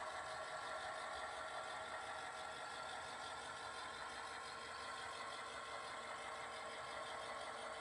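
Model diesel locomotives running on a model railroad layout: a steady mechanical hum.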